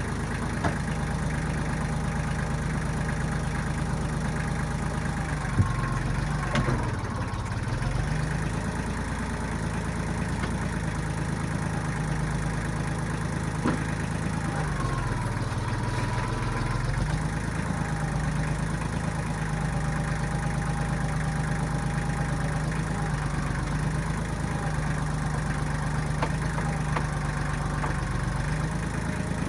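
1995 Kubota backhoe's diesel engine running steadily, its note dipping twice as the engine pulls down under load and then recovering. A few sharp knocks are heard, the loudest just before the first dip.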